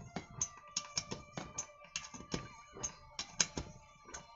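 Irregular metallic clicks and taps, several a second, of hands and hand tools working on a chainsaw engine while the ignition coil's air gap to the flywheel magnet is set.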